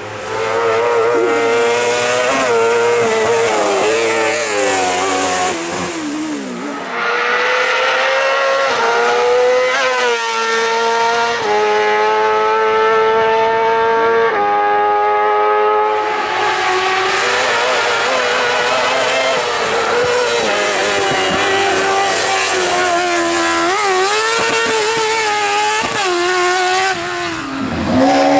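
Racing kart-cross buggy's motorbike engine revving hard under full throttle. The pitch climbs and drops back again and again with the shifts, holding high for a few seconds around the middle.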